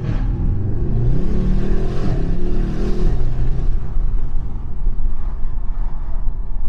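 BMW M5 F90's twin-turbo V8 under hard acceleration, its pitch shifting for about three seconds before settling into a steady rumble with road and wind noise.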